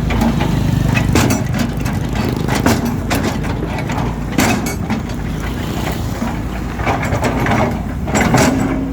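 Volvo EC210 excavator's diesel engine running steadily, with repeated sharp cracks and scrapes as the bucket breaks up and scrapes asphalt.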